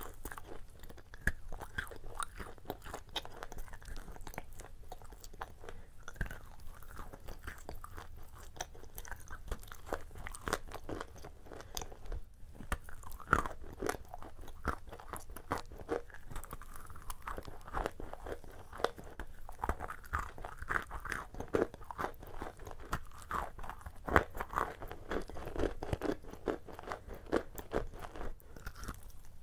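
Close-miked crunching and chewing of shortbread cookies spread with a soft paste: an irregular stream of crisp crackles as the biscuit breaks up in the mouth, with a few louder crunches at bites.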